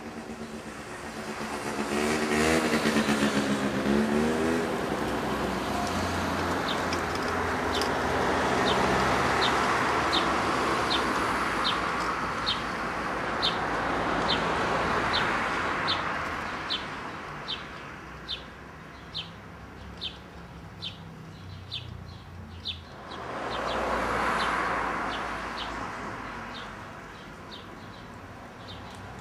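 Road traffic passing, loudest in the first few seconds and again about three-quarters of the way through. A bird repeats a short high chirp a little more than once a second through most of it.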